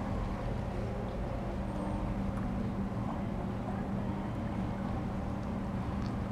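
A steady low droning hum with an unchanging pitch.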